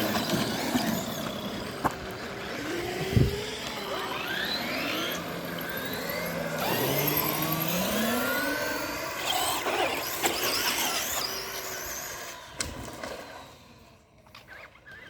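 Electric RC cars' motors whining in repeated rising and falling sweeps as they accelerate and slow, several overlapping, with a thump about three seconds in. The whine fades out near the end.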